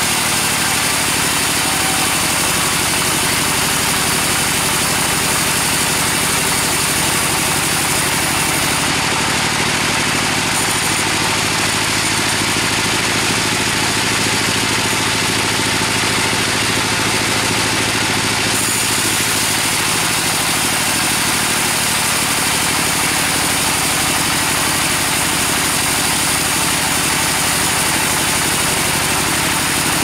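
Band sawmill running steadily as its blade rips lengthwise through a large gmelina (white teak) log. It is one unbroken machine drone with a hiss of sawing spread high up.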